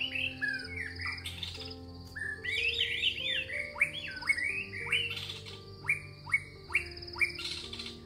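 Songbirds singing in quick, varied whistled phrases, ending with a run of loud up-swept notes about twice a second. Underneath are soft, sustained music chords and a steady chirping of crickets.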